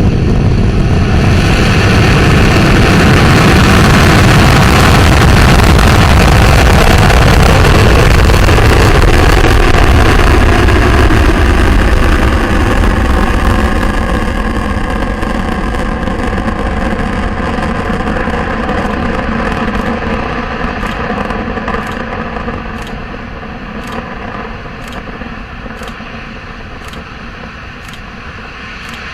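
Antares 230 rocket's two RD-181 first-stage engines roaring at launch: a loud, deep rumble that fades over the second half as the rocket climbs away.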